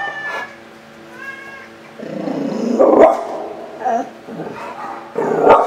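Dog whining with short, high cries, then two louder, rough barks, the loudest about three seconds in and another near the end.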